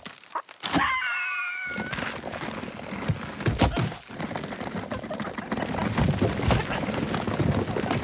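Cartoon sound effects: a short wavering cry about a second in, then loud cracking, crashing and knocking as a tree branch breaks apart, continuing with thuds and rumbling.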